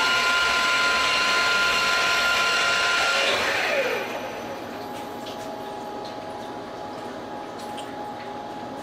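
CNC milling machine spindle running at speed with a steady high whine. About three and a half seconds in it shuts off and spins down with a falling whine, leaving a quieter steady hum.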